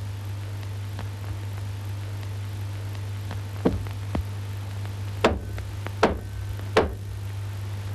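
Four sharp knocks from about three and a half seconds in, the last three closer together, over a steady low hum.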